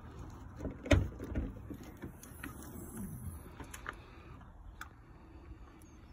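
Handling of a Land Rover's bonnet: a sharp knock about a second in, a second knock close behind, then a few lighter clicks and knocks.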